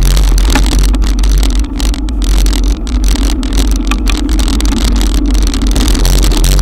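Wind buffeting and rain on an action camera's microphone while riding a bicycle through a cloudburst: a loud, steady low rumble with hiss.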